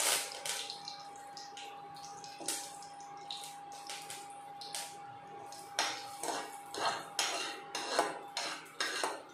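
A steel spoon stirring and scraping in a pan of spices sizzling in hot oil for a tadka, with clinks against the pan that grow louder and more frequent over the last few seconds. A steady high whine runs underneath and stops near the end.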